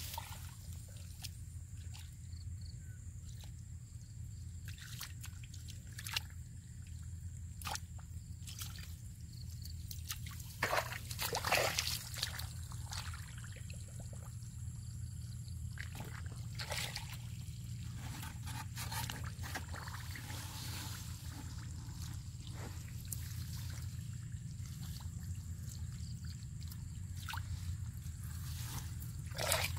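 Hands working in shallow muddy water: scattered small splashes, drips and squelches of mud, with a louder run of splashing about a third of the way in, over a steady low hum.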